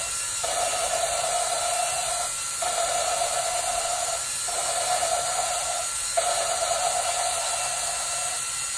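Drill spinning an engine valve against its seat in a Toyota 2.5-litre cylinder head to lap it with grinding compound: a steady whine that breaks off briefly about every two seconds, four times.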